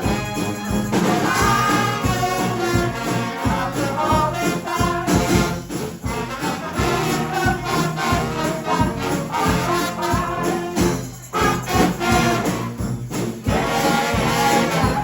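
Street brass band playing: horns carrying a tune over a steady drum beat.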